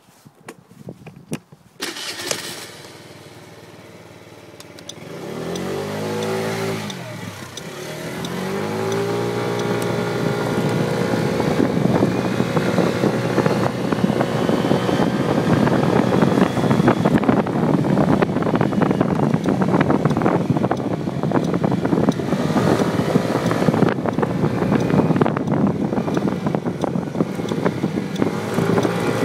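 SYM Symply 50cc four-stroke scooter engine starting about two seconds in and idling briefly, then revving as the scooter pulls away, its pitch rising and falling. It then runs steadily at riding speed with wind rushing over the mirror-mounted phone's microphone, easing off and picking up again about two-thirds of the way through.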